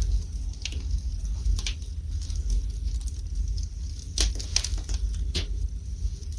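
Wood fire burning in a fireplace: irregular crackling pops, with the sharpest ones a little past four seconds in and near five and a half seconds in, over a steady low rumble.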